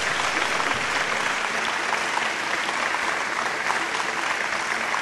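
Audience applauding, a dense steady patter of many hands clapping. A faint low steady tone comes in underneath about a second and a half in.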